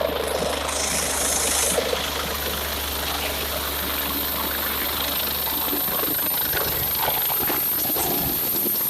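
Helicopter engine and rotor noise running steadily, with a steady low hum under it that fades about five and a half seconds in.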